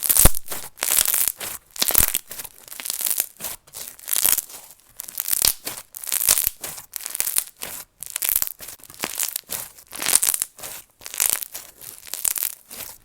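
Microfoam white glue slushie slime being squeezed and pressed by hand, giving repeated short crackling bursts about one or two a second.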